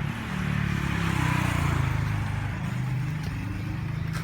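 Yamaha M-Slaz's single-cylinder engine revved through an aftermarket Akrapovic stainless exhaust with kevlar tip and dB killer fitted. The revs climb over the first couple of seconds, then drop back toward idle.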